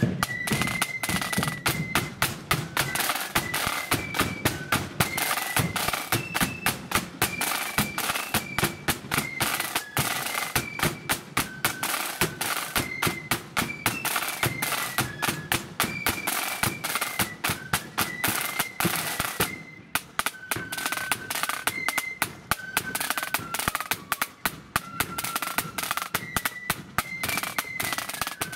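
Marching flute band playing a tune: a high flute melody over rapid, dense snare drum beating and a bass drum, with a momentary break about two-thirds of the way through.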